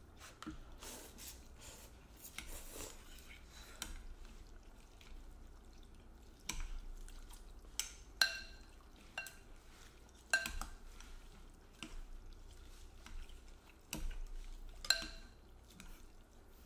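Chopsticks and a ceramic spoon clinking and scraping against ceramic bowls as bowls of noodle soup are stirred and eaten, with scattered clicks and a few sharp, ringing clinks.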